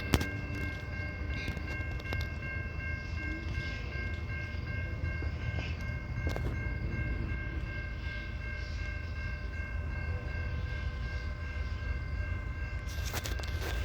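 CN locomotive air horn sounding a long, steady chord over the low rumble of the train, with a few clicks near the end.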